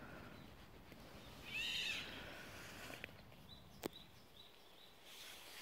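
Quiet forest ambience with a short, high bird call about a second and a half in, a few faint high chirps later, and a single sharp click near the four-second mark.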